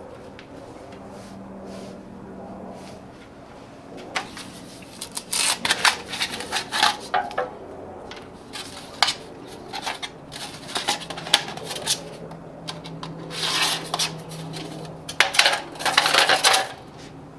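Thin metal windscreen sheet crinkling and clattering as it is unrolled, flexed and bent into a cylinder by hand, in irregular bursts from about four seconds in, loudest near the middle and near the end; a steady low hum underneath.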